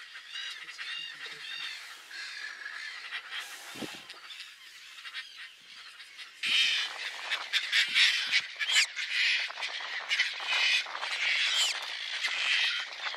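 Caspian terns calling in a breeding colony: harsh, arched calls, a few at a time at first, then many overlapping and louder from about six and a half seconds in.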